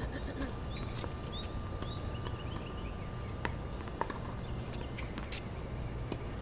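Outdoor ambience at a tennis court: a steady low rumble, a run of short high chirps in the first half, and a few scattered sharp knocks, the loudest about four seconds in.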